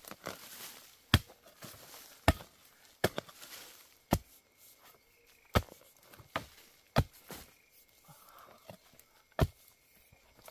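Hoe digging out a bamboo shoot: about ten sharp blows into the soil and roots, irregularly spaced, some in quick pairs.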